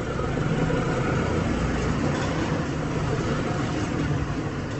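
Kubota M6040SU tractor's diesel engine running hard under load while stuck, its rear tyres spinning in loose dirt; the engine grows louder about half a second in.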